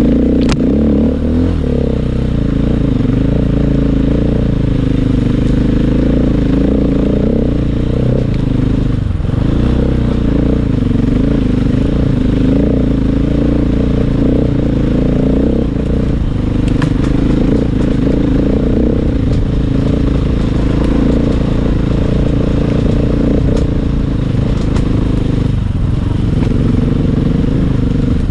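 Dirt bike engine running under constantly changing throttle while riding a rough, rocky trail, heard from the rider's helmet, with occasional sharp knocks and clatter from the bike over rocks.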